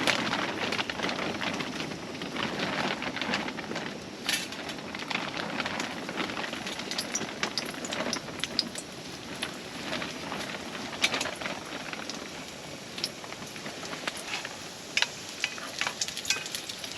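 Halved canned biscuits frying in hot oil in a frying pan: a steady sizzle with scattered pops and crackles, a little louder in the first couple of seconds.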